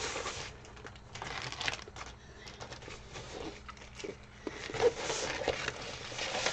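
Paper wrapping and the plastic film over a rolled diamond painting canvas rustling and crinkling as the roll is unrolled by hand, with scattered light taps.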